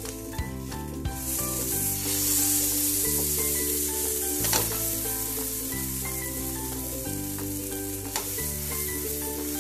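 Butter sizzling on a hot tawa as a masala-topped pav fries, turned and pressed with a wooden spatula, with a single knock about four and a half seconds in. Soft background music with held notes plays underneath.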